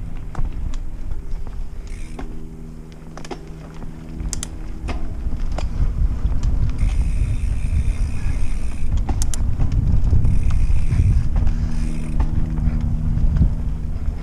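Mountain bike ridden fast down dirt forest singletrack: heavy tyre rumble and wind on the microphone, with sharp clicks and rattles from the bike over bumps and a steady hum in stretches.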